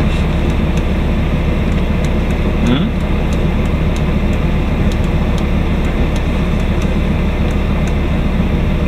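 Diesel engine of a Scania P230 garbage truck running steadily, heard from inside the cab, a constant low rumble.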